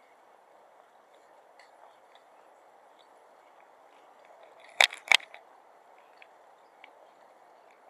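Two sharp, loud knocks about a third of a second apart, over a steady background hum with faint scattered ticks.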